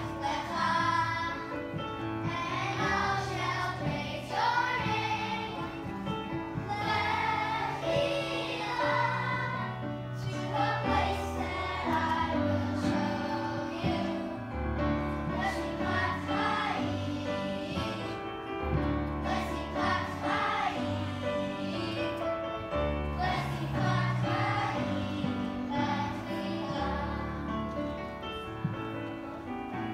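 A group of young children singing a song together in unison, over instrumental accompaniment with sustained bass notes.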